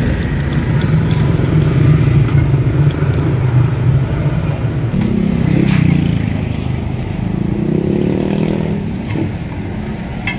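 A motor engine running: steady for about the first half, then shifting in pitch around the middle and rising again near the end.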